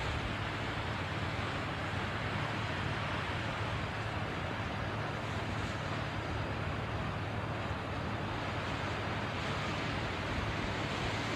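Ocean surf washing steadily against a rocky shore, a continuous even rush with a low rumble, mixed with some wind on the microphone.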